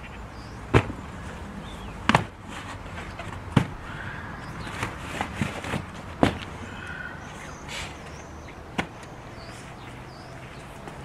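Homemade lead ingots being set down one at a time on a cardboard sheet: about five dull knocks, spaced a second or two apart, with a few softer taps in between.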